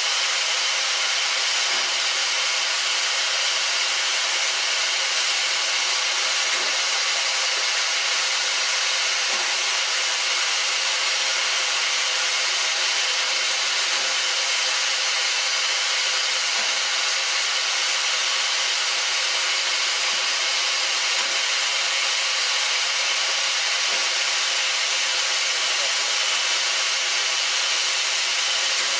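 Steam locomotive standing with steam hissing from it, a loud, unbroken hiss that holds at one level throughout.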